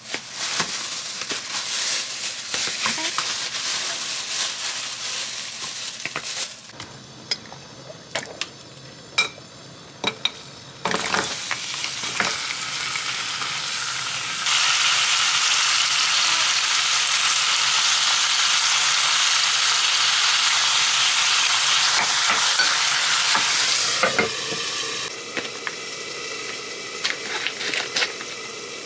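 Plastic film and a plastic meat tray crinkling as they are handled. This is followed by tap water pouring in a steady, loud stream onto raw chicken breast and pork in a pan for about ten seconds. Near the end come sharp clicks as kitchen scissors cut a foil noodle pouch.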